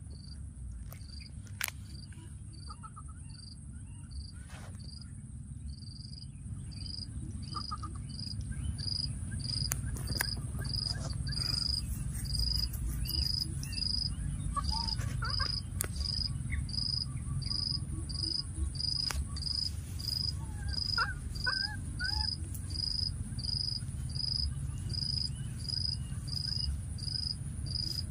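An insect chirping steadily in a regular high-pitched rhythm, a little faster than once a second, over a constant high insect drone. The chirping grows louder over the first several seconds, and a few faint short calls come through in the middle.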